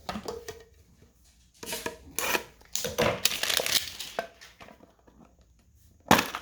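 Foil booster-pack wrappers and cards being handled, crinkling and tearing in several short irregular bursts. Near the end comes a sudden louder clatter.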